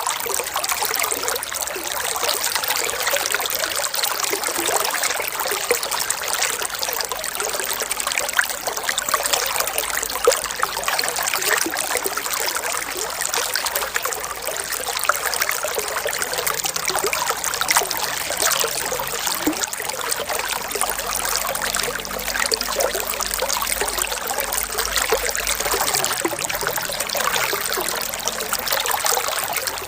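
Running water trickling steadily, full of small splashes and bubbling.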